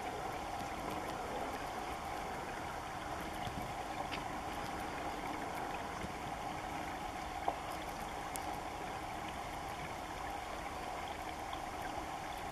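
Steady outdoor background rush with a faint hum, and a single sharp click about seven and a half seconds in.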